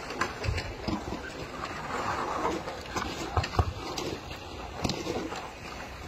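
Snow shovels and snow pushers scraping and knocking on snow-covered pavement in irregular strokes, several at once.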